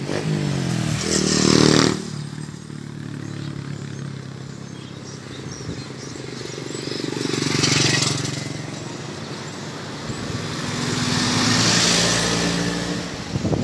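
Motor vehicles driving past on the road one after another, each swelling and fading: a first with an engine note under two seconds in, a second near the middle, and a longer third near the end.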